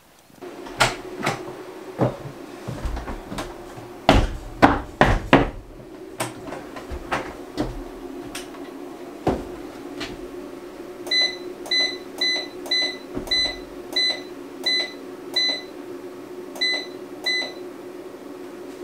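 Scattered clicks and knocks over a steady electrical hum, then, a little past halfway, a run of about a dozen short, high beeps at a quick, uneven pace, like an electronic unit's buttons being pressed.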